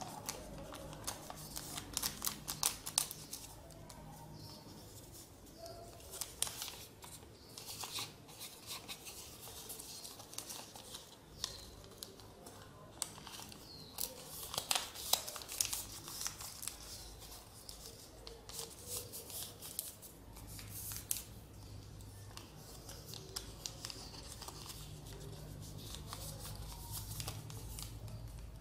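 A sheet of paper crackling and rustling as it is folded and creased by hand into an origami crane, in scattered clusters of crisp crinkles with quieter stretches between.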